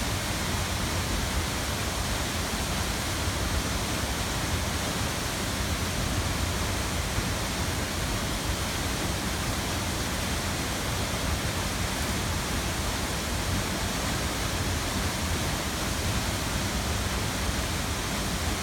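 Steady rush of a tall waterfall: an even, unbroken noise of falling water.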